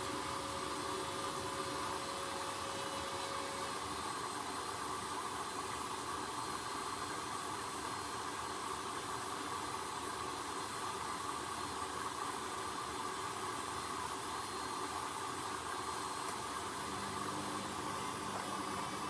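Hoover H-Wash 300 washing machine running mid-cycle: a steady hiss with a faint hum. A faint tone drops out about four seconds in, and a low hum comes in near the end.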